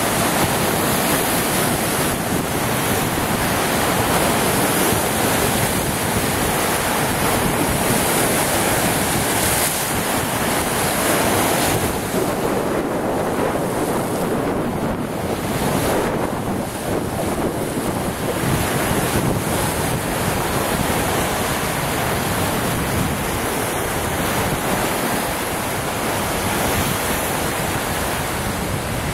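Lake Superior waves breaking and washing over the rocky shoreline in a steady rush of surf, with wind buffeting the microphone.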